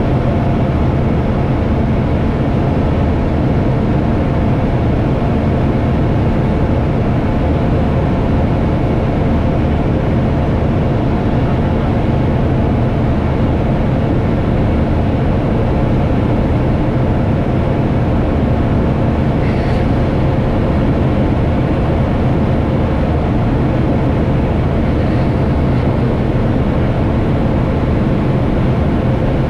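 Aeroprakt A-22 Foxbat's engine and propeller droning steadily in flight, heard from inside the cockpit.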